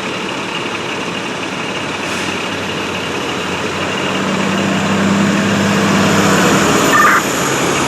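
A large vehicle's engine running under steady hiss, swelling louder in the middle and easing off near the end, with a short high blip about seven seconds in.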